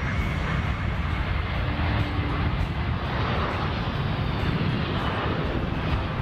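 Boeing C-17 Globemaster III's four turbofan engines running with a steady, heavy jet noise as the transport comes in low and touches down on a dirt strip.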